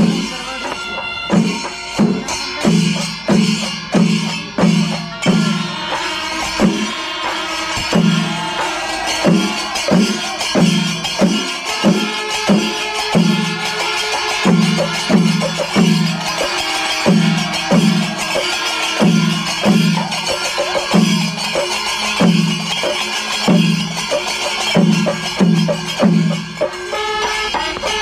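Loud drum-led music with a steady beat and a repeated low note.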